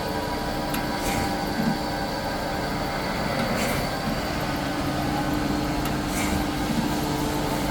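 Large Proth surface grinder running in its automatic cut mode: a steady machine hum with a held tone, and a faint click about every two and a half seconds.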